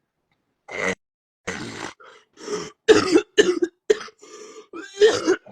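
A woman coughing repeatedly, a fit of about eight loud coughs starting just under a second in, with some throaty sound between the later ones.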